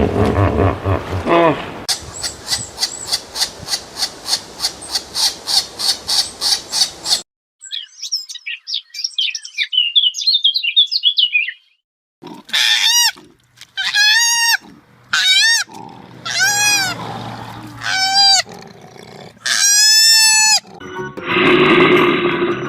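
A run of different animal calls in quick succession. It opens with a few short low grunts, then a fast train of pulsed calls about four a second. Next come twittering chirps, then a series of about six high, pitched calls that each rise and fall, and a rough noisy call near the end.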